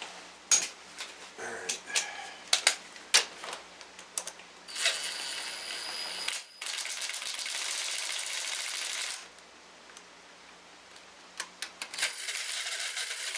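Sharp metallic clicks and taps as intake manifold bolts and a socket are fitted, then a cordless ratchet runs in three spells, about a second and a half, then about two and a half seconds, then again near the end, running the bolts down.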